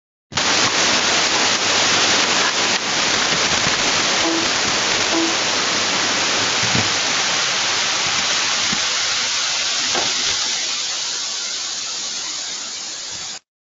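Loud, steady static hiss from the audio feed. It cuts in suddenly and cuts off just as suddenly about thirteen seconds later, its high end thinning over the last few seconds.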